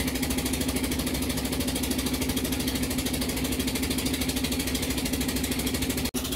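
Boat engine of a baleinière river boat running steadily under way, a strong steady hum with a fast even throb; the sound drops out for an instant near the end.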